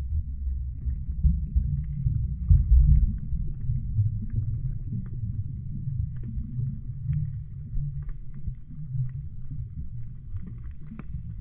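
Muffled underwater rumble of water moving around a submerged camera, with uneven swells and scattered faint clicks and ticks.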